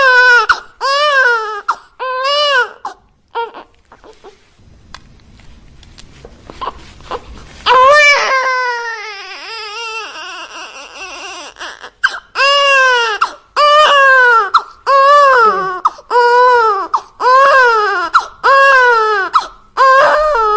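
Infant crying in short, rising-and-falling wails about a second apart. A quieter stretch of small whimpers comes midway, then one long falling cry, then a steady run of wails again.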